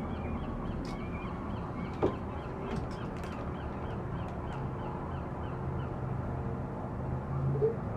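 Seagulls calling over a steady background of outdoor noise, with a few short calls near the end.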